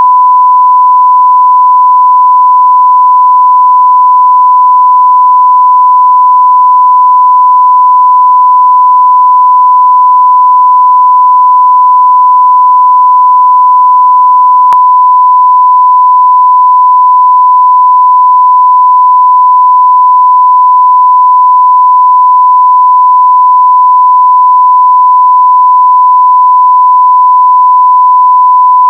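Censorship bleep: a loud, steady single tone near 1 kHz held without a break, with a tiny click about halfway through.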